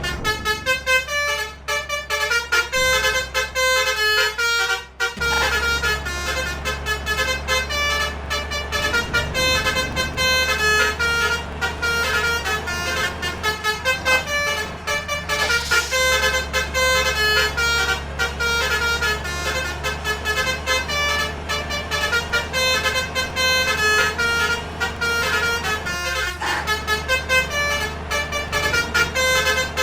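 Basuri 'telolet' musical air horn playing a fast run of changing notes as a tune, almost without a break, over a steady low rumble.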